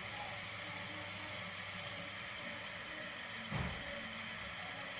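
Toilet tank refilling through a newly installed Fluidmaster fill valve: water running in steadily, the tank not yet full. A brief low thump about three and a half seconds in.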